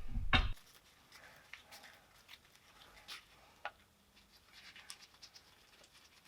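A short low thump, then faint scattered clicks and scratches.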